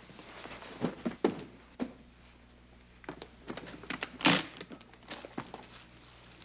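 Handling noises from searching through clothes and objects on a seat. A few sharp knocks come in the first two seconds, then cloth rustling and small clicks, with a louder burst of rustling about four seconds in.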